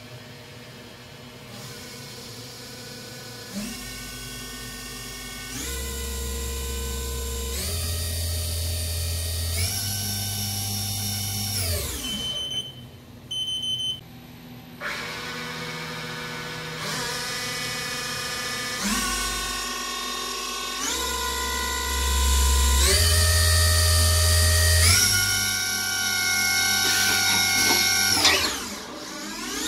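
Haas CL-1 CNC lathe spindle running up through a programmed series of speeds, pausing about two seconds at each. Its motor whine jumps higher at every step, then winds down about twelve seconds in. After a short pause with two brief high tones, it steps up through the speeds again and winds down near the end.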